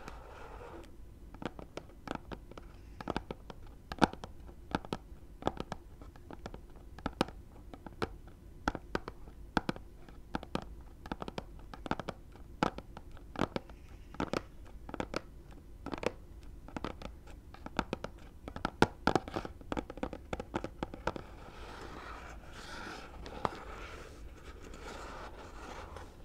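Long fingernails tapping and scratching on a phone case's retail package, picked up by a lapel mic clipped to the package. Sharp, irregular taps, a few a second, fill most of the time, and give way to steady scratching near the end.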